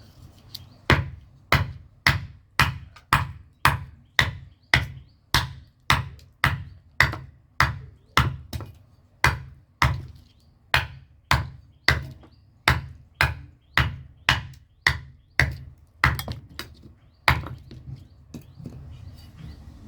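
Blacksmith's hand hammer striking leaf-spring steel on an anvil in a steady rhythm, a little under two blows a second, stopping about seventeen seconds in.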